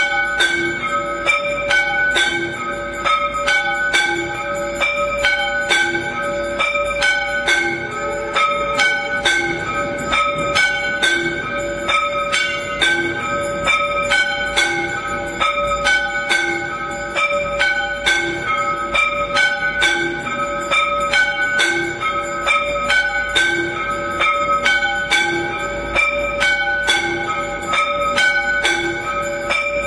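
Temple bells ringing rapidly and continuously for the aarti, the strikes coming several times a second over held ringing tones, with a deeper stroke recurring about once a second.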